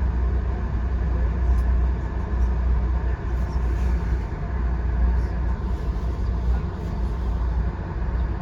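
Steady low rumble and wheel-on-rail noise of a VIA Rail passenger train running along the line.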